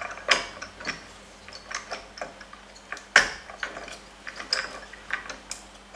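Irregular clicks, ticks and small scrapes of a CPU cooler's mounting screws being worked loose and the cooler being freed from the motherboard. The sharpest click comes about three seconds in.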